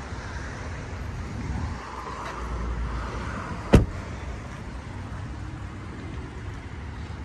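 Steady low rumble with one sharp knock a little past halfway through, the loudest sound.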